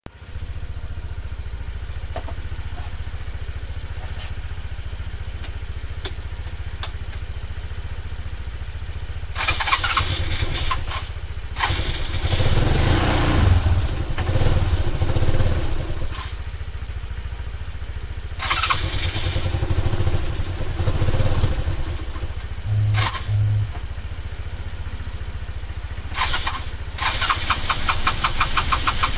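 Suzuki Vecstar 150 scooter's single-cylinder engine running unevenly, the throttle blipped in several surges of revs that fall back each time. The engine has started but the revs will not stabilise.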